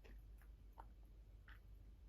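Near silence with about four faint clicks of someone chewing food.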